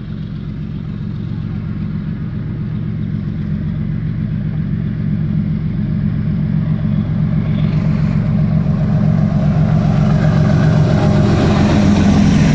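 GEU 40 and AGE 30 diesel-electric locomotives hauling a freight train, their engines running with a steady deep drone that grows louder as they approach. Wheel and rail noise rises as the locomotives come alongside near the end.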